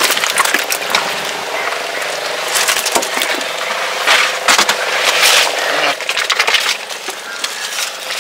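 Live, freshly caught jacks (trevally) flapping on a boat deck: irregular slaps and knocks of their bodies and tails against the deck, over a faint steady hum.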